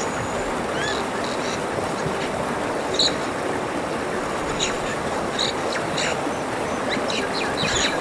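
Short, high bird chirps and calls scattered over a steady rushing background noise, the calls bunching up near the end.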